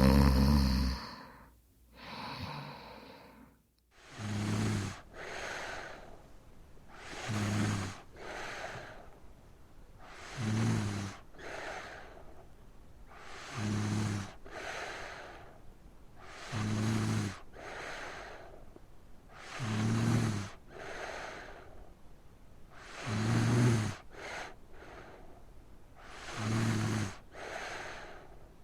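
Woman snoring in sleep: about every three seconds a low rattling snore on the in-breath, followed by a breathy out-breath, eight times over. There is a louder burst right at the start.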